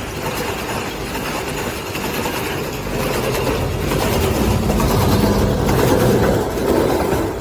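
Paint brush filament mixing machine running, a steady mechanical rumble and hiss that grows louder about three seconds in.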